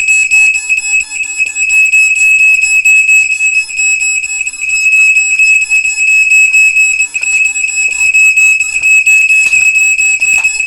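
Smoke alarm sounding continuously with a loud, piercing high-pitched tone, set off by smoke from a paper fire.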